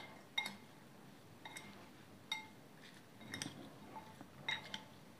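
Metal spoon clinking against a cut-glass bowl while stirring cut carrot and radish pieces coated in spices and oil: about six light clinks, each with a brief glassy ring.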